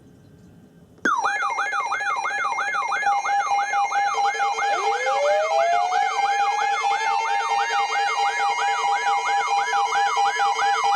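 Several sirens sounding together, starting suddenly about a second in. One sweeps quickly up and down about two and a half times a second over steady tones, and another winds up slowly in pitch from about four seconds in.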